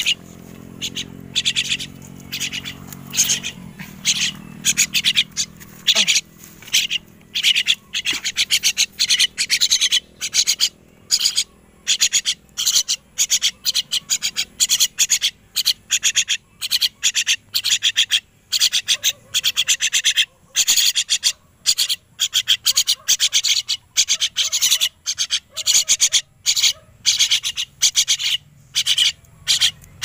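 Young crested mynas giving rapid, repeated high-pitched food-begging calls, about two a second, as they are hand-fed banana.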